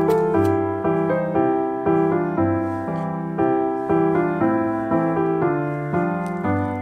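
Background piano music, notes struck at an even pace of about two a second.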